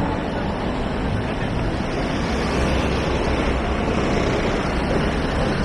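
Steady city road traffic: cars and small box trucks driving past over a wide pedestrian crossing, with a constant low rumble and tyre noise.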